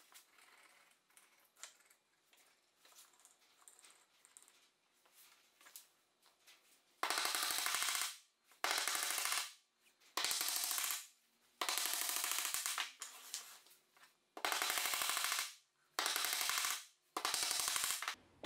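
Claw hammer driving glued wooden dowels into holes in softwood rails: eight short bursts of rapid taps, each lasting about a second, after some seven seconds of faint handling clicks.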